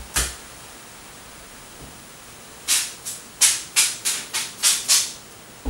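A trigger spray bottle squirting water onto the car's rear window glass to wet it for tint film. There is one squirt near the start, then eight quick squirts in about two and a half seconds, over a steady low hiss.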